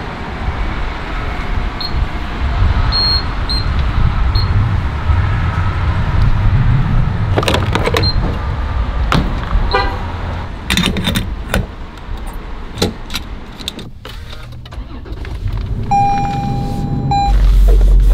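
Refuelling a car at a gas pump: a few short beeps from the pump's keypad, a steady low rumble of fuel running, then a string of clicks and knocks as the nozzle and fuel door are handled. Near the end there is a steady tone lasting about a second, then a low hum.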